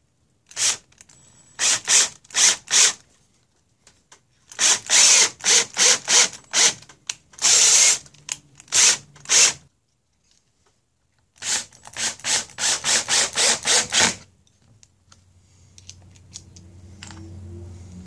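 Cordless drill driving screws into wood in short trigger bursts: three runs of quick pulses, each a few seconds long. A quieter low hum follows for the last few seconds.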